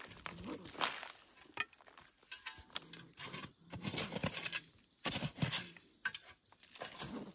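A short-handled hand digging tool scraping and stabbing into dry soil, digging out a burrow in repeated, irregular strokes.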